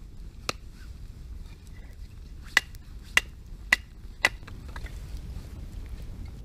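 Kindling being split by hand at a campfire: a light tap, then four sharp, ringing knocks of a tool on dry wood, about two a second.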